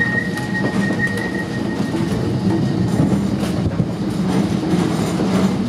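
1902 cable-hauled Great Orme Tramway car running along its rails: a steady rumble with scattered clicks and knocks, and a thin high squeal that carries through the first second or so before dying away.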